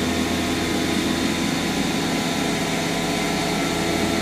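CNC milling machine taking a slow finishing pass under flood coolant, about 5000 RPM at a 500 mm/min feed. A steady spindle and cutting hum with a hiss of coolant spray.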